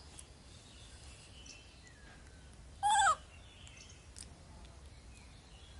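A single short animal call about three seconds in, rising in pitch and then dropping, over a quiet background with a few faint chirps.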